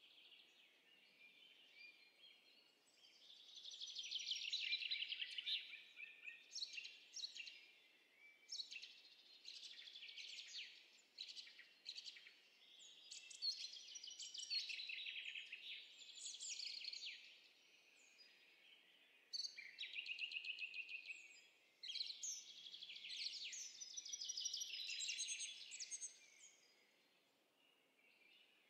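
Birdsong sound effect: small birds chirping and trilling in quick runs of repeated high notes, phrase after phrase with short pauses between them.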